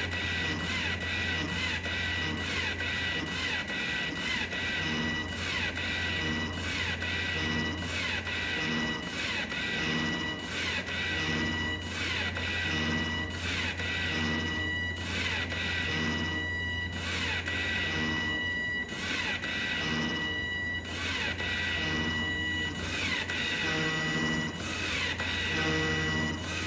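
DIY motor-driven ventilator running through its breathing cycle. A high whine and low pulses cut out briefly about every two seconds, over a steady low hum.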